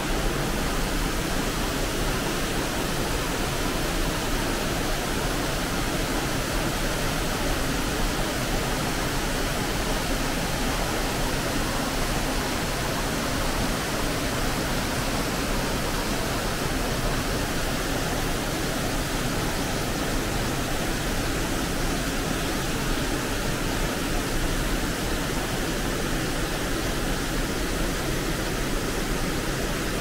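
Kegon Falls' water pouring down, a steady, even rush of falling water with no breaks.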